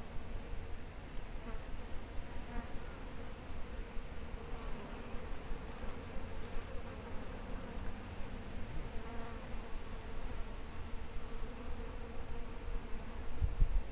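Insects buzzing steadily, over a low, uneven rumble, with a brief louder low bump near the end.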